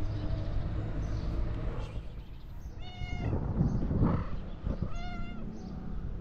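Tuxedo stray cat meowing twice, about two seconds apart, each meow short and high, over a low background rumble.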